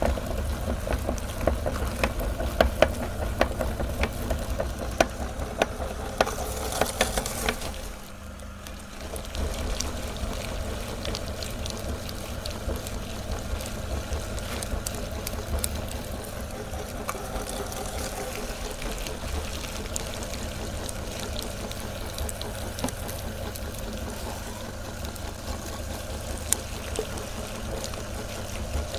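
Electric meat grinder running with a steady low hum while jelly candy is forced through it, giving a wet, squishy crackling. The crackling is busier with sharp clicks for the first several seconds, dips briefly, then settles into a steadier squelch.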